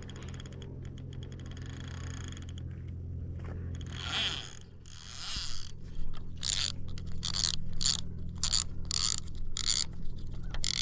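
Fishing reel being cranked: quick fine ratchet-like clicking at first, then regular scraping strokes about twice a second as the line is wound in.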